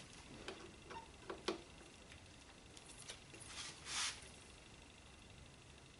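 Faint, scattered light metal clicks of a hand tool being fitted to the pinch bolt on a motorcycle's bottom fork clamp, with a brief rustle about four seconds in.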